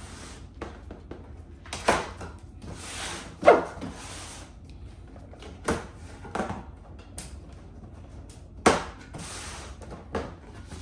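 A cardboard box being opened and its contents handled: a string of knocks and thuds, the loudest about three and a half seconds in, mixed with cardboard sliding and packaging rustling.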